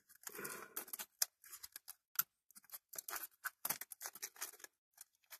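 Small clicks, taps and light scrapes from fiddling with a superglue bottle's nozzle and small model parts by hand: a brief rustle near the start, then an irregular run of sharp little clicks.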